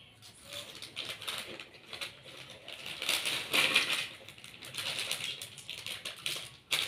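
Crinkling of a plastic snack packet being handled and shaken, a dense crackle that is loudest about halfway through.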